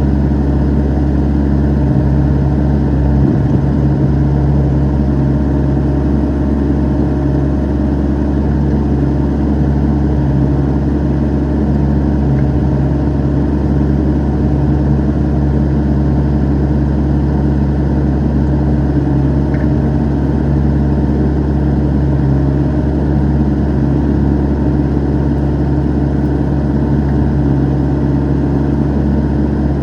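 Excavator's diesel engine running steadily at a constant speed.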